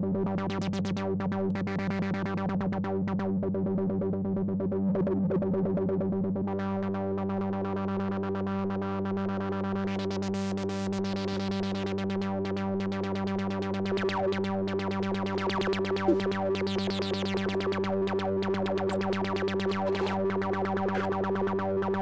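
Korg ARP ODYSSEi software synthesizer playing a fast, steady repeating low note, its tone changing as the on-screen knobs for filter cutoff, envelope depth and decay are turned. The sound shifts about a third of the way in and brightens in sweeps twice later on.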